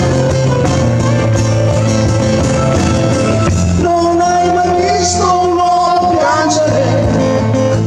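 A live pop-rock band playing: bass guitar and guitars with a steady bass line, then about four seconds in the bass drops back and a man's singing voice carries the melody over lighter guitar backing.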